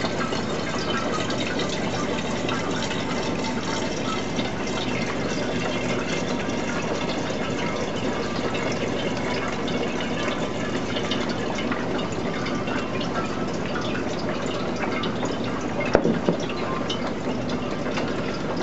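Phytoplankton culture running in a thin steady stream into a glass demijohn, splashing and frothing as it fills the bottom of the vessel. A single knock near the end.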